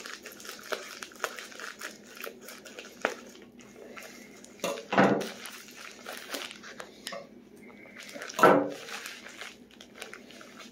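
Scissors snipping through a plastic Priority Mail envelope, then the envelope and its paper-wrapped contents crinkling and rustling as they are pulled out and handled. Two brief vocal sounds stand out, about five and eight and a half seconds in.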